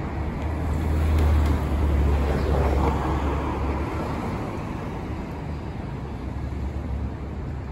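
Vehicle traffic noise: a low rumble with a steady hiss, swelling over the first few seconds and easing after about four seconds.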